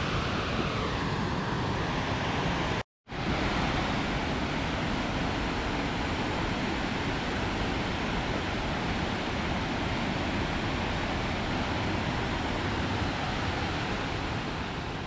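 Steady rushing of the Stigfossen waterfall below the Trollstigen viewpoint, mixed with wind. The sound cuts out for a moment about three seconds in, then carries on unchanged.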